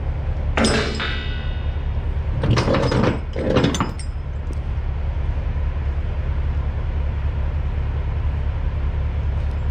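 Steel ratchet chain binders clanking against chain and the load as they are hung in place, once about a second in with a short metallic ring and again in a couple of clattering knocks around three seconds in. A steady low rumble runs underneath.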